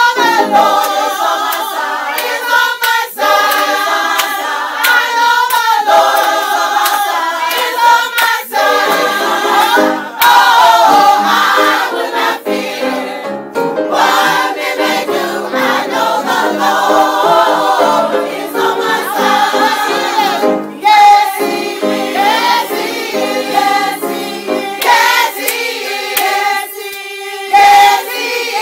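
A choir's soprano section singing a gospel song, several high voices together with no low voices underneath.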